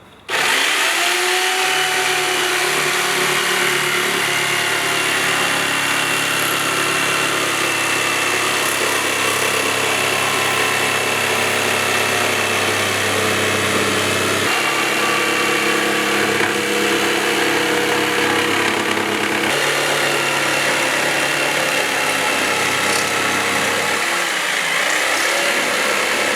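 Electric jigsaw running steadily. Its motor pitch rises as it spins up at the start, and the sound shifts a few times along the way.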